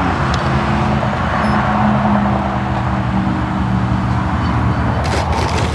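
Electric ducted-fan RC jet running steadily, a loud rushing fan noise over a low hum, with a few clicks near the end.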